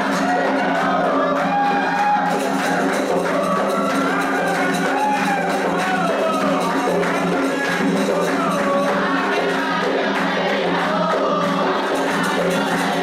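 Candomblé toque for Logun Edé: a group of voices singing together over steady hand-drum and percussion rhythm, continuous and unbroken.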